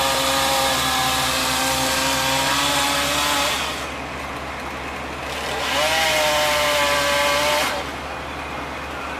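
Chainsaw revved at full throttle for about three and a half seconds, dropping back to a quieter idle, then revved up again for about two seconds before returning to idle.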